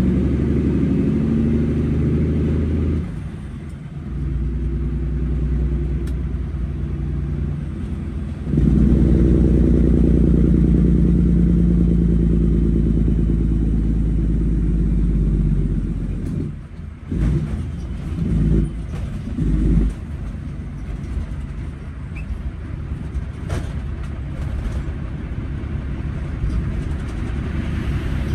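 Semi-truck diesel engine running under way, heard from inside the cab: a steady low drone whose level dips about three seconds in and again around sixteen seconds, with a few short surges just after, then settles a little quieter.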